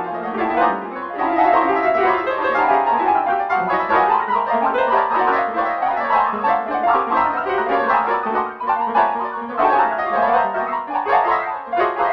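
MIDI instrumental music with piano-like synthesized keyboard sounds playing a busy melody, notes in quick succession at a steady level.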